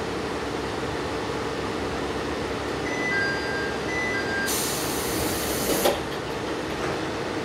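Diesel railcar's engine idling steadily. About three seconds in, a two-note ding-dong chime sounds twice, followed by a loud hiss of air that ends in a thump, as the doors close.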